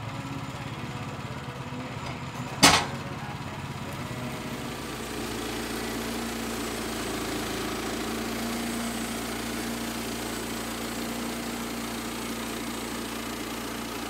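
Woodland Mills HM122 portable bandsaw mill with its small gas engine running steadily, and one sharp knock about two and a half seconds in. From about four and a half seconds in, a louder rushing noise joins the engine as the band blade cuts through the log.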